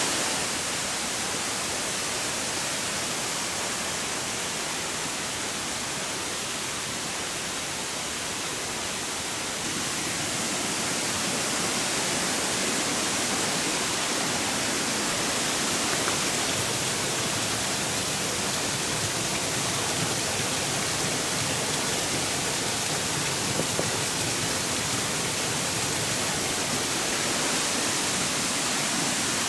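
Steady rush of a waterfall and mountain river in the gorge, an even roar of falling water with no breaks. It grows a little louder about ten seconds in.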